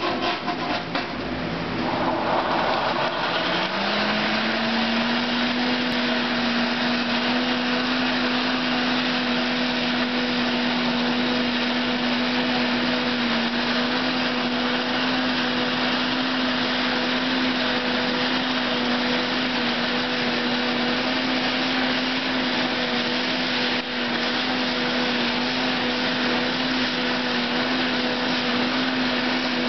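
Champion coal forge's blower whirring as it drives air into the fire, rising in pitch over the first few seconds and then holding a steady hum over a constant rush of air.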